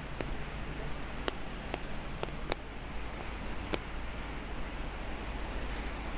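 Steady hiss of rain on a wet street, with a handful of sharp, irregular taps of drops hitting the umbrella overhead in the first four seconds.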